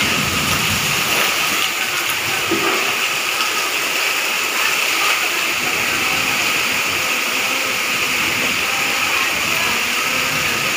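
Heavy rain pouring steadily, with floodwater running and splashing across a tiled floor.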